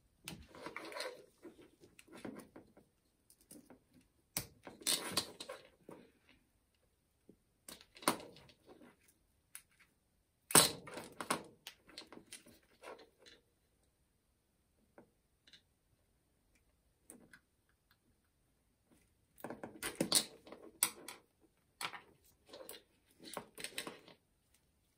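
Handling noise from unplugging the wiring connectors of a cordless drill's trigger switch from its controller board with a pick: scattered sharp plastic clicks and small rattles of wires and parts on a metal bench, busiest near the end.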